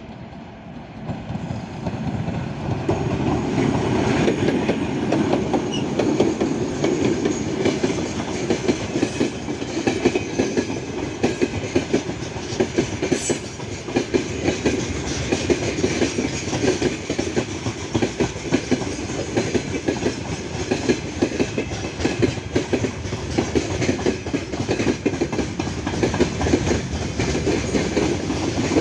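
Wagons of a broad-gauge mixed freight train rolling past, wheels clattering steadily over the rail joints; the clatter swells in over the first couple of seconds.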